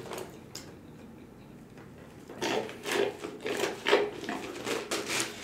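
Drinking a soda through a straw from a foam cup: irregular sucking and swallowing sounds that begin about two seconds in.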